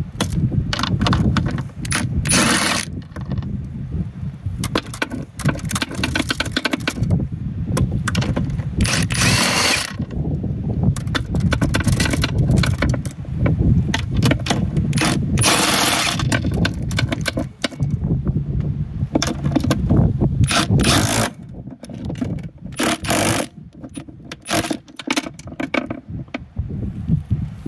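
Socket ratchet clicking in repeated bursts of about a second as the jet pump's mounting bolts are backed out, with metal clinks of tools and bolts, over a steady low rumble.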